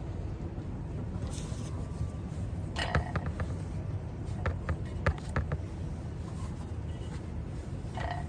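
Steady low room hum with a few small clicks and taps, a cluster about three seconds in and several more about five seconds in, and a brief rustle about a second in: the small sounds of someone working at a desk.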